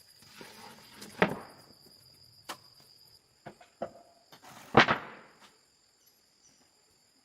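A handful of sharp knocks and thumps, the loudest about five seconds in, over a steady high-pitched whine in the background.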